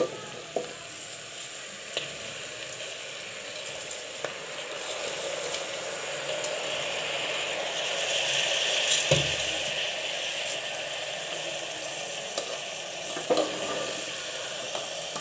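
Spiced vegetables sizzling in oil in an aluminium pressure cooker as washed rice is tipped in from a steel bowl and stirred. The sizzle swells about eight seconds in, with a few sharp knocks of spoon and pot.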